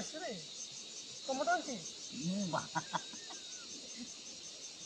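Insects chirping in a high, evenly pulsed drone, with a few brief low voice sounds from a man between about one and three seconds in.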